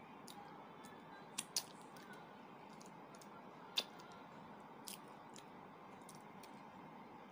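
Mouth and hand sounds of eating a boiled duck egg: a few sharp clicks and smacks, the loudest just before the middle, over a steady low hiss.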